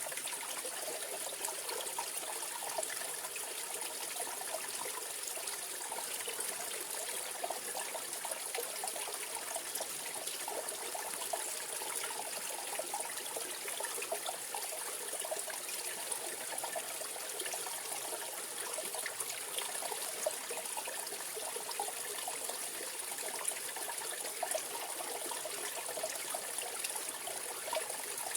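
Mountain valley stream flowing over rocks, a steady rush of water with close trickling and burbling.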